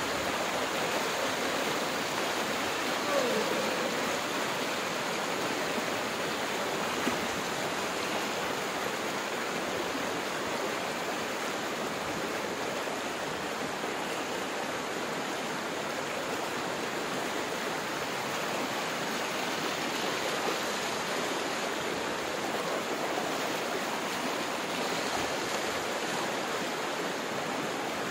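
Floodwater from a breached river embankment rushing fast across flooded ground and a road, a steady, unbroken roar of running water.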